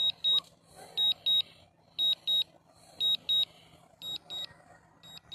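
Drone remote controller beeping in short high-pitched pairs, about one pair a second: the return-to-home alert while the drone flies itself back.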